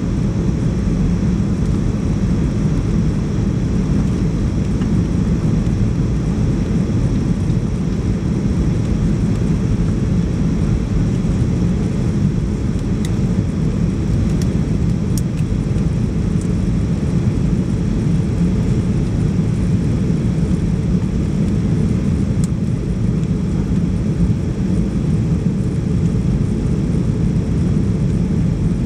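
Steady cabin noise inside a Boeing 737-800 airliner during descent: its CFM56-7B jet engines and the rushing airflow heard through the fuselage as a loud, even, low rumble.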